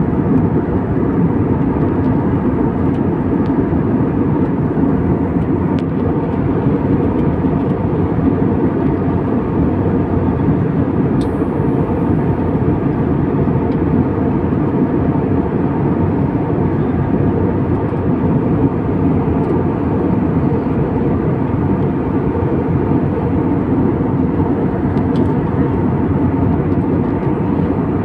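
Steady cabin noise of a jet airliner in cruise flight: an even, low rush of engine and airflow noise, with one faint click about eleven seconds in.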